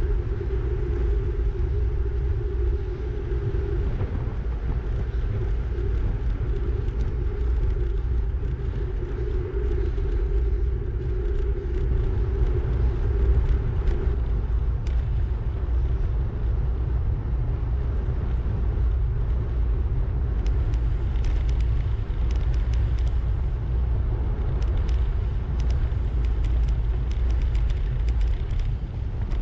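Wind buffeting the microphone of a bicycle-mounted camera while riding, a steady low rumble. A steadier hum runs under it for the first half and fades out about halfway, and light ticks come through in the last third.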